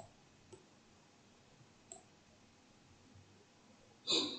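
A few faint computer mouse clicks, spaced out: one at the start, one about half a second later, one about two seconds in. Near the end comes a louder, brief rustling noise.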